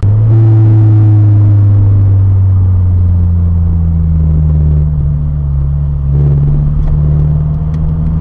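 Car engine and road noise heard inside the cabin: a steady low drone, with a faint tone that slowly falls as the car slows.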